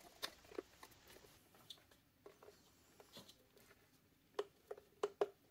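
Faint clicks and taps of hands working a plastic display housing and squeezing a plastic one-handed bar clamp onto it, with a few sharper clicks near the end.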